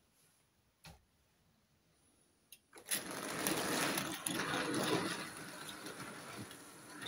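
Märklin model E 41 electric locomotive and its freight wagons pulling away: after a couple of faint clicks, the small motor and the wheels start up about three seconds in with a dense whirring rattle on the track, loudest at first.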